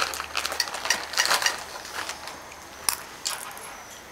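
Irregular light clicks and scrapes, a small handling or movement noise.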